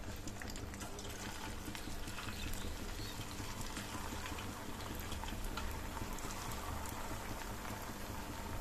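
Leftover-rice nuggets deep-frying in medium-hot oil in a steel pan: a steady sizzle dotted with many small crackling pops.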